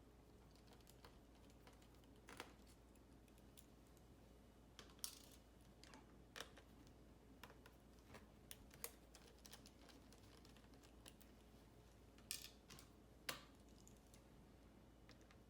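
Faint, scattered small clicks and taps, about one every second or two: a screwdriver and tiny screws being worked out of the laptop screen's LCD mounting, with the plastic bezel and panel being handled.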